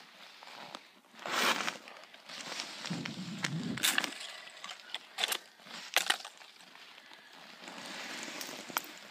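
Crunching and crackling of snow and slush on lake ice underfoot and around an ice-fishing hole, with several sharp cracks and clicks of ice.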